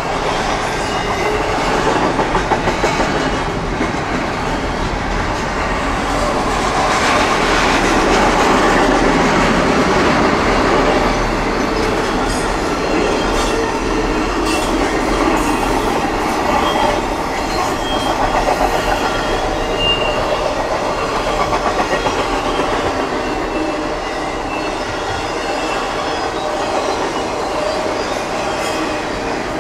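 Intermodal freight train of container and trailer cars rolling past at speed: a steady rumble with the rhythmic clickety-clack of wheels over rail joints.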